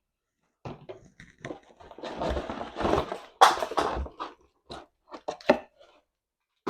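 Plastic packaging crinkling and parts clicking as they are handled, densest about two to four seconds in, with scattered clicks either side.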